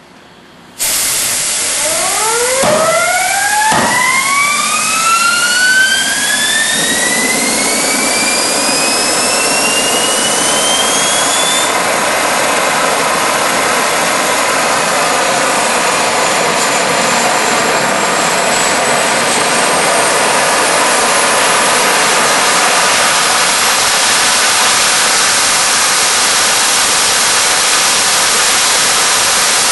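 Home-built turbojet made from a Garrett automotive turbocharger starting up hot. A rush of air comes in suddenly, and a whine climbs steeply in pitch for about ten seconds as the shaft spools up, with two sharp pops about three and four seconds in. It then settles into a loud, steady jet noise while the turbine glows red-hot.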